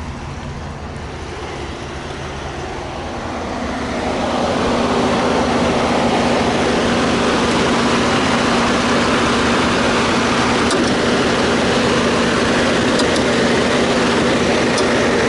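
Ford Raptor's 6.2-litre V8 idling steadily, louder from about four seconds in as it is approached from the front at the grille.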